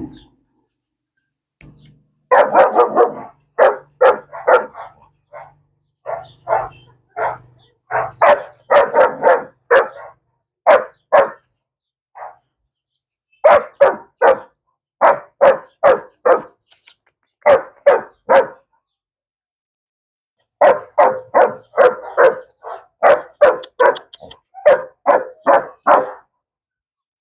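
Six-month-old Belgian Malinois barking in quick runs of several short barks, about three a second, with brief pauses between the runs.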